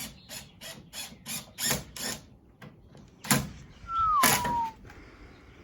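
DeWalt cordless drill/driver working a screw into wood: a run of sharp ratcheting clicks, about four a second, then a louder stretch about four seconds in where the motor's whine falls in pitch.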